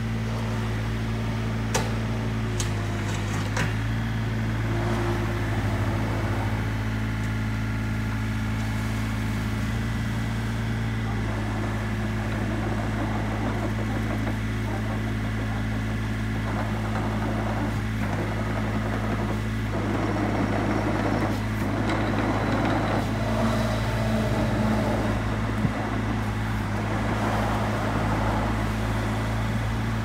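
Komatsu PC35MR-2 mini excavator's diesel engine running steadily while the operator works the hydraulics, pressing the bucket down to lift the tracks off the ground. There are a few sharp clicks in the first four seconds, and the sound grows louder and rougher for several seconds in the second half as the hydraulics take the load.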